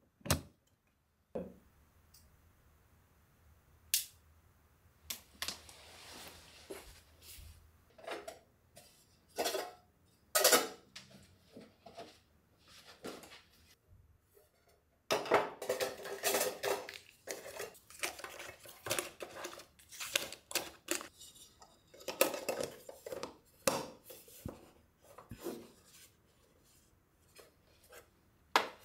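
Small metal tin boxes being handled: lids clinking and clattering as the tins are opened, closed, stacked and set down, with a sharp click at the very start as a plug goes into a wall socket.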